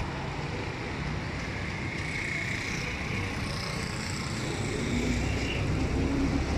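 Road traffic: cars and motorcycles passing with steady engine and tyre noise, growing louder about five seconds in as a car drives past close by.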